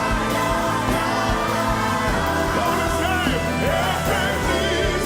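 Live gospel worship music: a band playing with bass and keyboards under singing voices, with some vocal slides.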